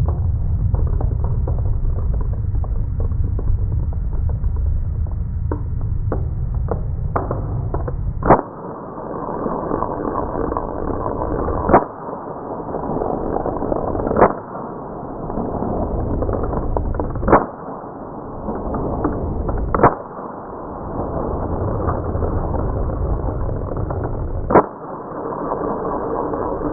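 Six single shots from a 400 FPS CO2 airsoft pistol, sharp pops a few seconds apart, over a steady low background noise that dips briefly after each shot.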